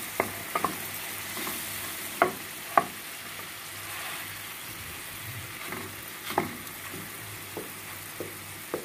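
Sliced banana frying in fat in an aluminium pan, a steady sizzle, while a wooden spatula stirs and mashes the pieces, knocking against the pan in irregular sharp taps.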